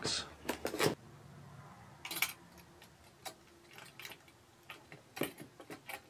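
A handful of light, scattered clicks and taps as a Noctua NH-D15 tower heatsink is handled and positioned over the motherboard's mounting bars. The clicks are thickest in the first second, with a few more spread through the rest.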